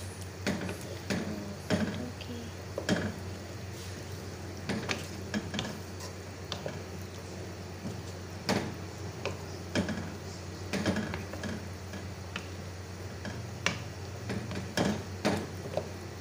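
A wooden spoon stirring and scraping chopped chicken chunks and vegetables around a dark wok, with irregular clacks against the pan. The mixing works in a little cornflour to thicken the sauce. Under it runs a low steady hum.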